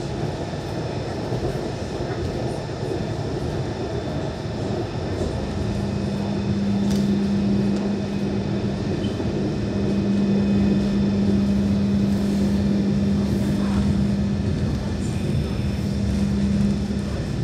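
A BN coastal tram running along the line, heard from inside the car: a steady rumble from the running gear, joined about five seconds in by a constant low hum that holds until near the end.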